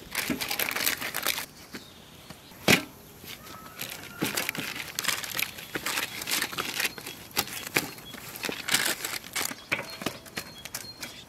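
Paper lining a metal tray crinkling and rustling in irregular strokes as hands press and stretch raw pide dough over it, with one sharp tap a little under three seconds in.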